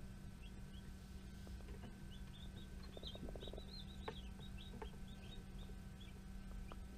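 Newly hatched baby chicks peeping: a run of short, high cheeps, thickest about three to four and a half seconds in, over a steady low hum.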